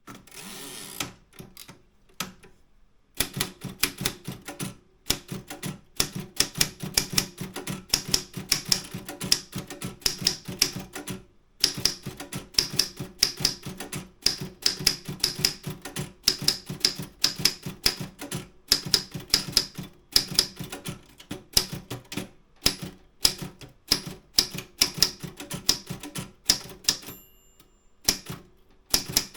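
Optima M10 manual typewriter being typed on: rapid runs of key strikes, several a second, broken by short pauses, with a brief bell-like ring near the end.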